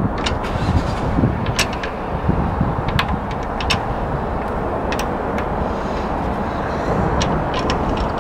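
Light metallic clicks, about a dozen scattered irregularly, as wheel bolts are threaded by hand into an alloy wheel, over a steady low rumble of outdoor background noise.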